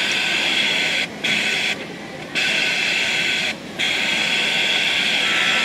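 Sewing machine stitching in four runs, stopping briefly between them.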